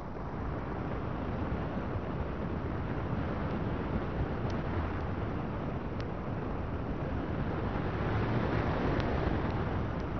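Steady rushing wind noise on a small microphone, with a few faint ticks.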